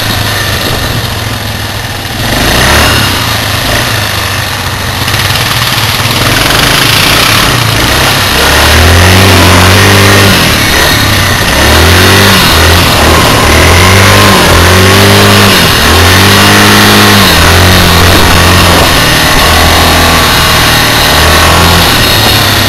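ATV engine running as it is ridden over snow, the throttle worked on and off so the engine note rises and falls again and again in the second half, over a steady rushing noise.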